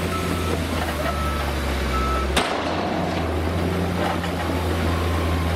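Diesel dump truck engine running steadily as the truck tips its bed, with a reversing alarm beeping about once a second three times. A sharp click about two and a half seconds in, then the engine hum continues.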